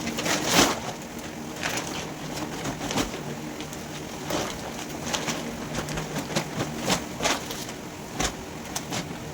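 Plastic packaging on a Wakefit mattress crackling and rustling in irregular short bursts as it is handled and unwrapped.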